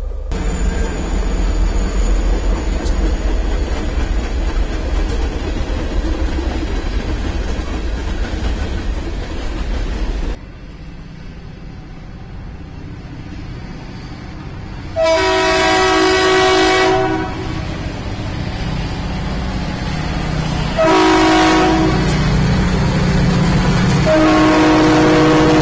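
Freight train rolling past, a steady low rumble of rail cars that cuts off abruptly about ten seconds in. Then a diesel locomotive's multi-note air horn sounds three times: a long blast, a shorter one and another long one. The train's rumble grows louder as it comes close.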